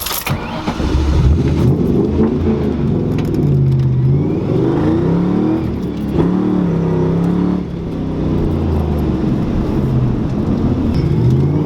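New Edge Mustang's 4.6 V8 revving up and down repeatedly under hard throttle, the engine note climbing and dropping several times with a short lift about eight seconds in.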